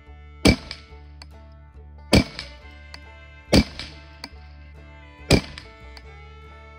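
Semi-automatic .22 Long Rifle rifle firing Winchester Super X rounds: four sharp shots about one and a half seconds apart, with a fifth right at the end, over steady background music.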